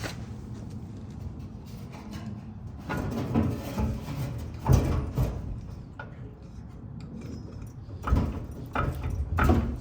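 Irregular clunks and scrapes of metal parts and hand tools being worked, as old fuel lines and the fuel tank sending unit are pried loose; the sharpest knock comes about five seconds in.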